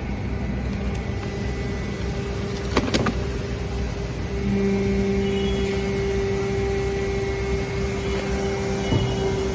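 Hydraulic scrap metal baler running with a steady motor-and-pump hum, louder and stronger from about halfway through. A sharp metal clank comes about three seconds in, and a lighter knock near the end.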